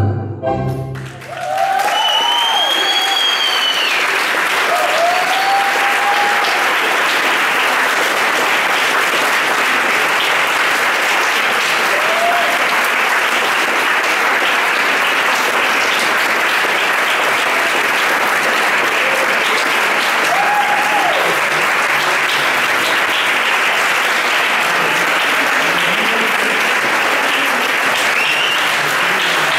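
Tango music ends about a second in, followed by an audience applauding steadily, with scattered cheers.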